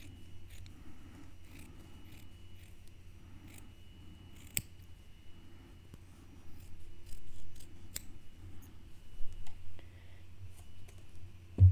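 Small scissors snipping through felt in a run of soft, irregular cuts, with two sharper clicks of the blades, over a faint steady hum.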